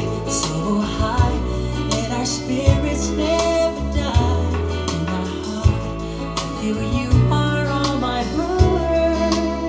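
A song with a singing voice, steady bass notes and drum hits, played back through a pair of Klipsch R-41M bookshelf speakers and picked up in the room by a microphone.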